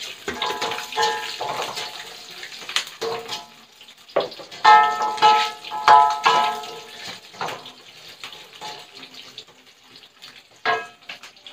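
Spatula stirring spices frying in a metal wok: a sizzle under repeated knocks and scrapes of the spatula against the wok, each knock leaving a short metallic ring, loudest about five to six seconds in.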